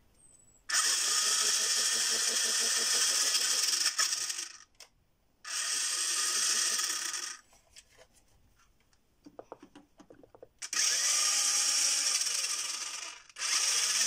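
The Carrera RC Turnator's electric drive motors and gearboxes whirring as they spin its wheels in the air, in four runs of a few seconds each with short pauses between them. In the last two runs the pitch rises and falls. A few light clicks come in the gap before the third run. This is a bench test of the rewired electronics, showing that the motors respond.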